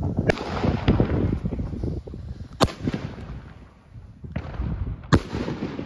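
Funke Iskra Line Siemanko Sredni salute bomb tube firing: a series of sharp bangs as shells launch and burst as salutes. Three stand out, about two and a half seconds apart, and the middle one is the loudest. Crackle and rumble fill the gaps between them.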